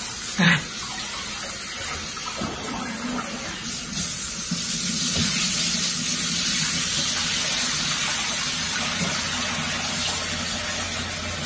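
Kitchen faucet running into a sink while dishes are washed by hand, with a few small knocks. The water gets louder about four seconds in.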